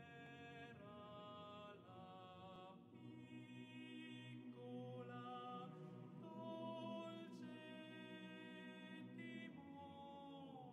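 Quiet choral music: voices singing long held notes that change every second or two.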